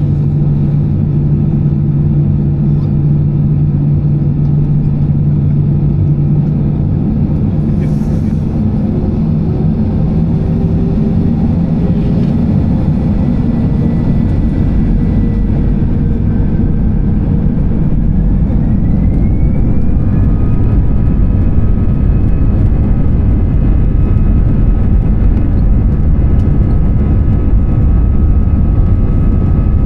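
Airbus A320-214 engine and airflow noise heard from inside the cabin, a loud steady rumble. About two-thirds of the way through, a whining tone rises and the noise grows a little louder, as the CFM56-5B engines change thrust.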